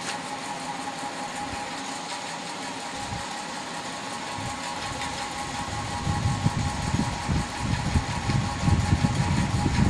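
Steady mechanical hum and hiss from a running motor, joined about six seconds in by irregular low rumbling.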